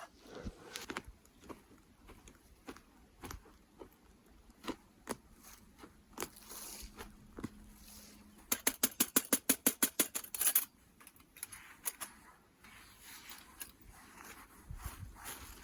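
Scattered light clicks and taps, then a quick run of about a dozen sharp clicks a little past the middle.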